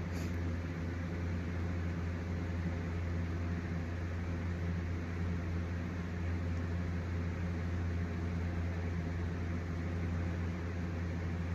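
Steady low hum with an even hiss from a running motor or appliance, with no change in pitch or level.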